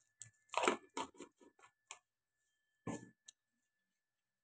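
Sugar sprinkled into hot oil in a kadai, crackling in short irregular bursts in the first two seconds, with a few more crackles about three seconds in.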